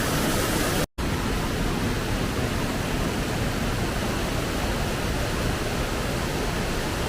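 Steady roar of rushing, falling water from a waterfall, cut off by a brief total dropout about a second in.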